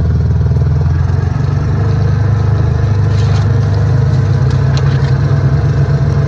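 Car engine running steadily at low speed, a low, even rumble.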